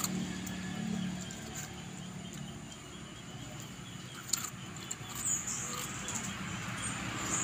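A dog chewing on a raw leafy vegetable, with scattered crisp crunches and one sharper crunch about four seconds in.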